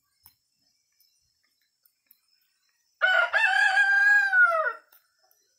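A rooster crowing once, about three seconds in: a broken start, then a held call of nearly two seconds that falls in pitch at the end.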